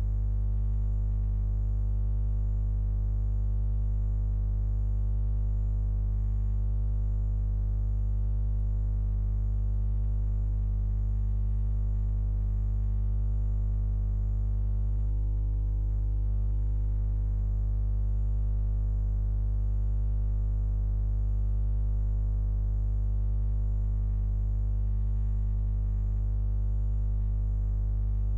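A steady, unchanging low hum with many overtones, loudest in the deep bass.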